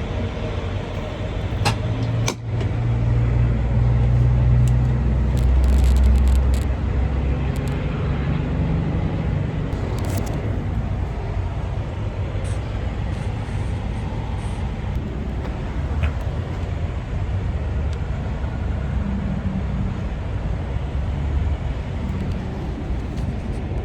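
An engine running steadily close by, with a low hum that swells a little in the first few seconds. Two sharp clicks come about two seconds in, and a brief hiss about ten seconds in.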